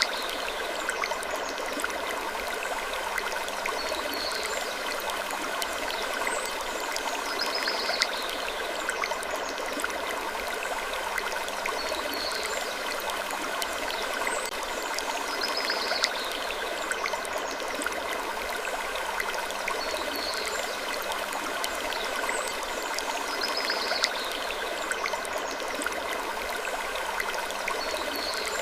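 Steady rushing, water-like background noise with faint, short high-pitched wood creaks, the whole pattern repeating about every eight seconds as a looped ambience track.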